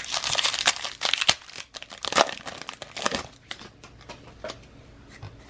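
A baseball trading-card pack wrapper crinkling and tearing open by hand, with a dense crinkle through the first second. Sharp rustles follow about 1.3, 2.2 and 3 seconds in, then only faint small ticks of cards being handled.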